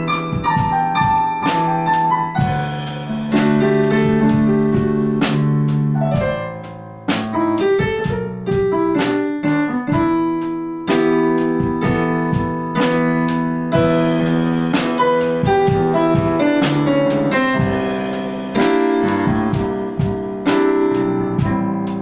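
Keyboard with a piano sound playing chords, each chord struck sharply and left to ring, with no singing.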